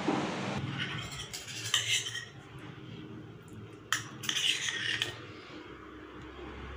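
Wooden spatula stirring and scraping a thick besan and sugar-syrup mixture in a nonstick pan, with a sharp knock just before four seconds in as the spatula is set down, then more clinks of kitchen utensils.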